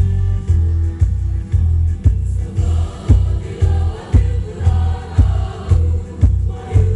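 Women's choir singing in parts over a heavy deep beat that pulses about twice a second.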